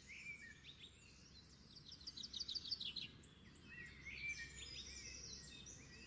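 Faint songbirds singing, with quick runs of high repeated chirps about two seconds in and more calls after about four seconds.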